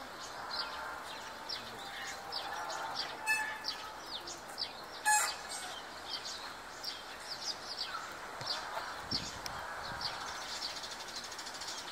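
Eurasian tree sparrows chirping, many short, quick calls overlapping several times a second. A sharp click about five seconds in is the loudest sound.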